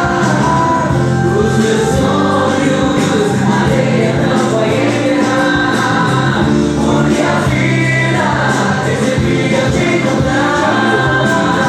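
Christian worship song sung with instrumental accompaniment, with held, steady notes.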